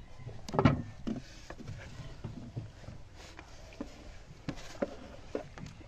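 Knocks and thumps on a small wooden boat as it is handled, one loud thump about a second in, then scattered lighter knocks.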